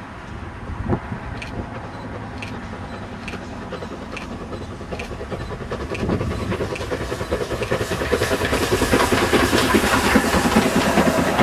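Steam locomotive hauling a train of coaches as it comes up and passes close by. Its regular exhaust beats and the running of the train grow steadily louder from about six seconds in, the loudest part coming as it goes past.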